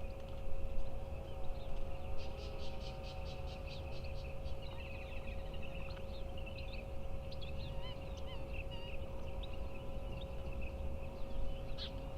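Several wild birds calling at once: chirps, rapid clicking runs and short descending trills overlapping throughout, over a steady hum and a low rumble.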